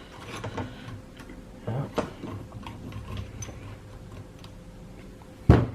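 Small metallic clicks and light knocks as a valve spring compressor is unscrewed to release a valve spring from the cylinder head, with one loud metal clunk about five and a half seconds in.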